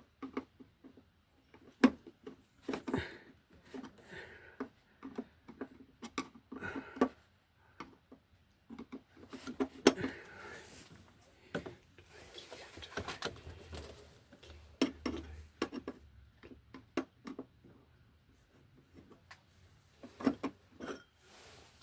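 Irregular clicks, taps and knocks of hands working at an electrical box, handling its cover, wires and tools.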